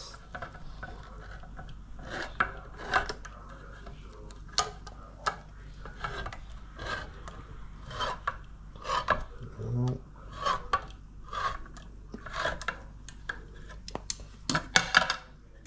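Hand-held can opener working its way around the rim of a metal can: a long run of short, irregular scraping clicks, roughly one to two a second.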